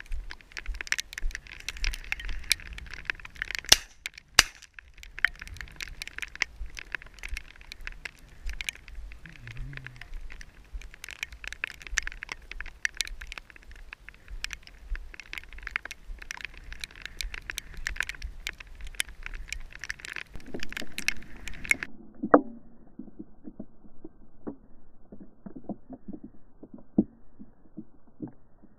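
Dense, irregular crackling and tapping on a body-worn action camera in its housing as the wearer walks through a wet field in rain, with knocks from handling. About three-quarters of the way through the sound turns duller and more muffled, with one sharp click.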